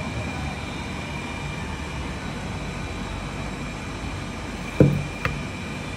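Steady hum and hiss of restaurant room noise with a thin, steady high tone running through it. Near the end come one short thump and then a click.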